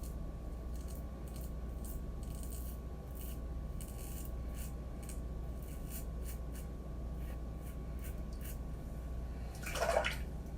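Razor shaving stubble in a run of short strokes, each a faint, crisp rasp, at an irregular pace of one or two a second. A louder, brief sound comes near the end.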